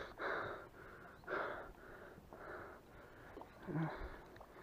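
A person breathing heavily in short rushes, about half a second each, while playing a hooked carp on rod and reel, with a brief low hum near the end.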